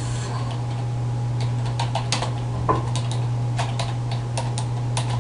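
Computer keyboard keys being typed in short, irregular clicks, starting about a second and a half in, over a steady low hum.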